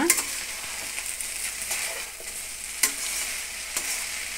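Chopped okra and tomato sizzling in oil in a pan over a raised flame, with a steady frying hiss. A metal spatula stirs the vegetables and clicks against the pan a few times.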